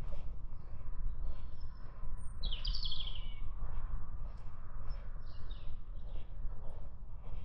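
Footsteps of a walker on a forest track, about two steps a second, over a steady low rumble. A small songbird sings one short descending phrase about two and a half seconds in.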